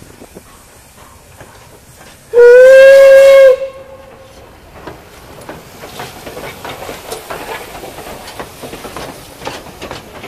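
Steam locomotive whistle blowing once, a single steady note about a second long and very loud. Then the locomotive and its coaches run past close by with a growing clatter of wheels on the rails.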